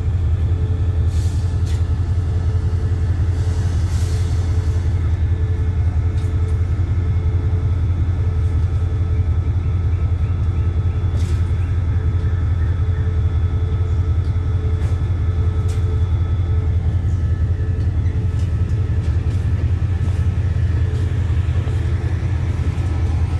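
Steady low hum of a standing diesel passenger train's engine running at idle, with a few short clicks and knocks over it.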